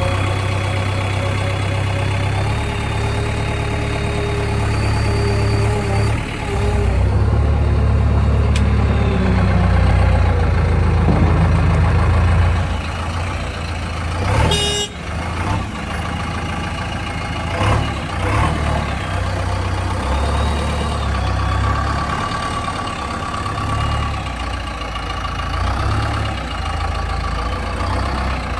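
JCB backhoe loader's diesel engine running under hydraulic load, its pitch rising and falling as it works, loudest for a few seconds near the middle. Two sharp metallic clanks come about halfway through, a few seconds apart.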